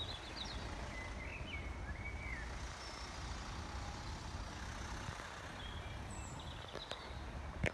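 Outdoor ambience: a steady low rumble with a few faint, short high chirps scattered through it, and a single sharp click near the end.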